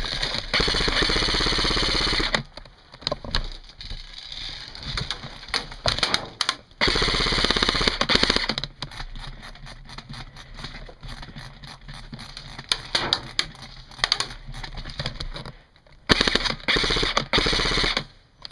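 Airsoft electric rifle firing several long full-auto bursts, a fast, even stream of clicks, about two seconds at a time, with quieter gaps between.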